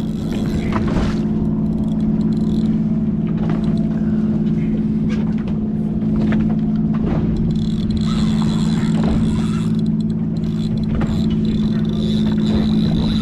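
A fishing boat's engines idling with a steady, even drone, with scattered light clicks and knocks over it.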